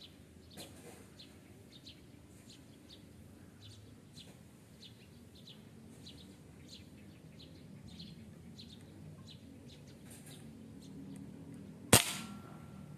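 Small birds chirping in short high notes, then a single sharp air-rifle shot near the end, the loudest sound, fading quickly.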